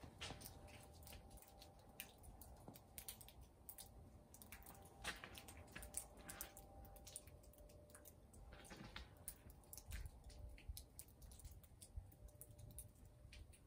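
Near silence, broken by faint irregular clicks and soft crackles.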